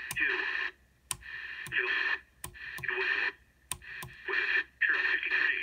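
CB radio speaker putting out bursts of static and garbled reception that start and stop several times, with sharp clicks between the bursts.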